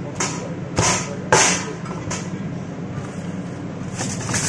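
Meat cleaver chopping grilled chicken on a plastic cutting board: four sharp chops in the first two seconds, over a steady low hum.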